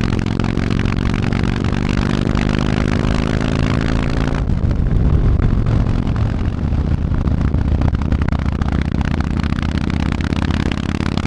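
Yamaha MT-01's big V-twin running through an Akrapovič exhaust while riding, its note climbing slowly under acceleration. About four and a half seconds in the clean engine note breaks off into a rougher, noisier rumble, and it starts climbing again near the end.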